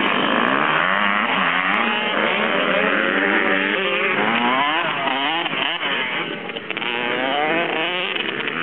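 A pack of youth motocross bikes revving hard as they pull away from the start line, many engine notes rising and falling over one another.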